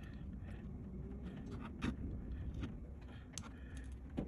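A few sharp, light clicks and taps of a hand tool working on the MacBook Pro's opened case while old battery tape is picked off, over a steady low hum.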